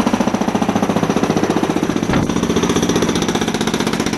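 Hydraulic concrete breaker hammering rapidly and steadily into a concrete driveway slab, with one sharper knock about halfway through.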